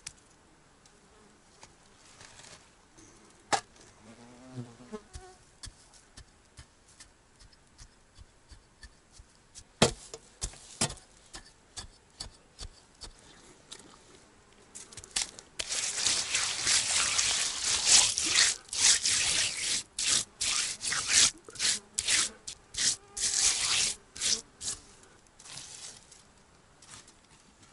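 Hands scraping and packing loose soil onto a metal sheet around a stovepipe, a long stretch of dense rustling and scraping from about halfway through. Earlier there are scattered rustles, a few sharp knocks and an insect buzzing past briefly.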